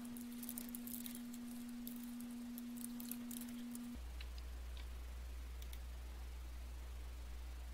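Faint computer keyboard typing, a quick run of clicking keystrokes for about three seconds, followed by a few scattered mouse clicks. A steady low electrical hum runs underneath and drops to a lower pitch about four seconds in.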